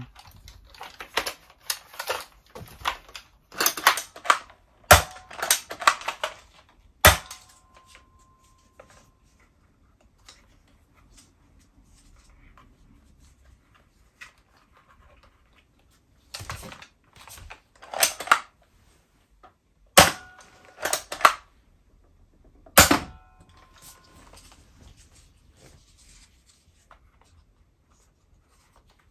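Plastic Nerf shotgun-style blaster being worked and fired: a quick run of sharp plastic clacks through the first seven seconds, then a few more single and paired clacks later on, with quieter handling between.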